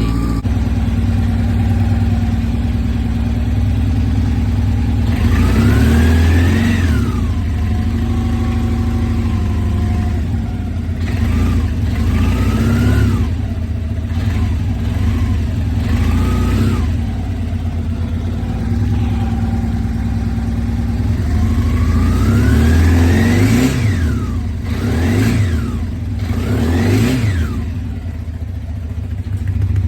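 Honda Nighthawk 700S inline-four engine idling and revved repeatedly, the revs rising and falling back to idle with each blip of the throttle. The last third holds a cluster of three quick revs. The engine has a ticking noise that the owner is trying to place.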